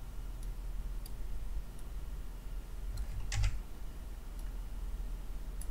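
A few faint computer mouse clicks, irregularly spaced, with a somewhat louder click about three and a half seconds in, over a low steady hum.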